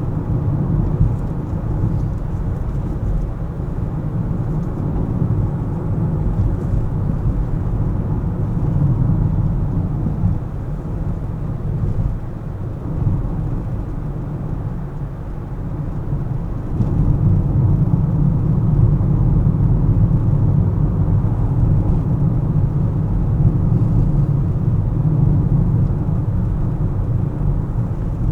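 Car driving in traffic: a steady low rumble of engine and tyre noise, easing off for a few seconds near the middle and growing louder again from a little past halfway.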